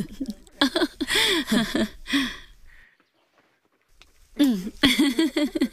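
Women's voices, laughing and talking, with about a second of silence in the middle.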